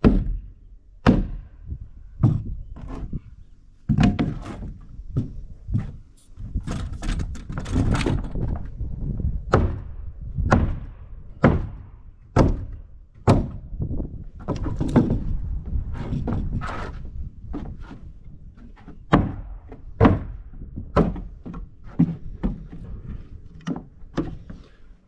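Sledgehammer blows on wooden framing lumber over an OSB subfloor deck: a run of heavy thuds and knocks, spaced irregularly about a second apart.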